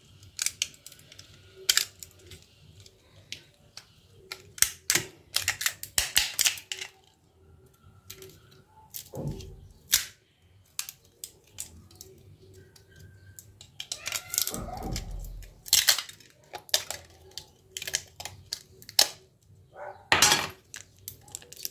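Plastic housing and parts of a Nokia 1209 phone being pried apart and handled with a thin metal pry tool: an irregular run of clicks, snaps and scraping, with two dull knocks about nine and fifteen seconds in.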